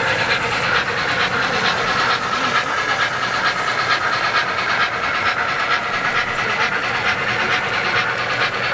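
O-scale model train running on the layout: a steady rolling noise with a fast stream of fine clicks from the wheels on the track, and a steady hiss.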